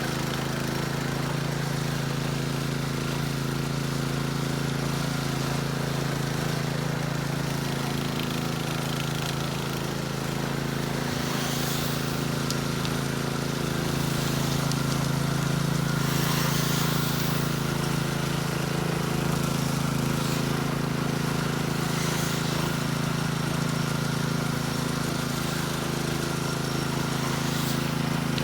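An engine running steadily at a constant speed, with a few brief hissing sounds over it.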